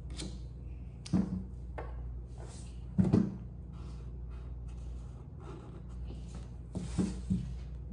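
A pen drawing on glitter paper, with light scratching and a few knocks on the tabletop (three, about 1, 3 and 7 seconds in, the middle one loudest), over a steady low hum.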